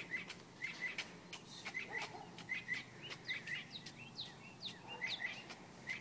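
Small birds chirping: a busy run of short, sharp chirps and quick falling notes, several a second, from more than one bird.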